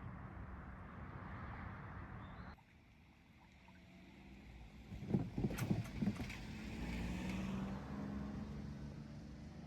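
A train passing over a rural level crossing: after a steady rumble cuts off abruptly, a short run of sharp wheel knocks over the rail joints comes about halfway through, followed by a steady low hum as the train goes by.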